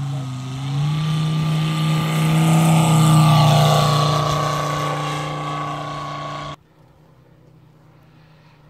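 Moki 250 radial engine of a giant-scale RC AT-6 Texan at full power on its takeoff run and climb-out, its note rising about a second in. It is loudest about three seconds in, then fades as the plane climbs away. It drops abruptly to a faint, distant engine sound near the end.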